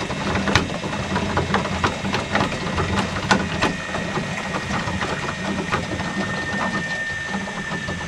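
Eberspacher D9W diesel water heater and its heating circuit running: a steady hum with irregular ticking and crackling throughout. A faint high steady tone joins about two seconds in.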